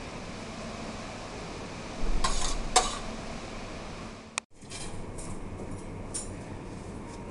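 Serving spoon and fork clinking and scraping against a stainless-steel pan as farfalle in cream sauce are lifted onto plates, with a burst of louder clinks about two seconds in. The sound cuts out briefly just past halfway, then a few fainter clinks follow over a steady background hum.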